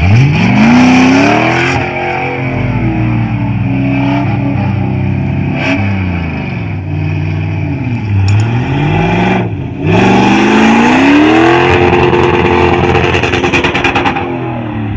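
Car engine revved hard during drifting, its pitch climbing and falling back several times, with a brief dip about ten seconds in before it climbs again.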